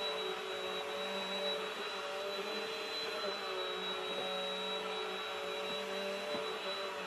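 Bissell upright vacuum cleaner running steadily, its motor giving a constant hum with a high whine over it.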